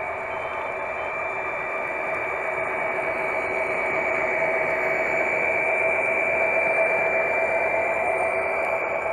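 Model train running along the track, heard from a camera riding on it: a steady mechanical whine and rolling noise with a few held tones, swelling slightly midway.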